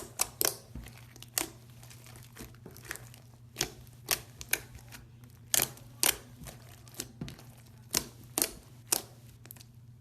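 Pink bubblegum slime being poked and squished by hand, giving sharp, irregular wet pops and crackles about every half second, over a steady low hum.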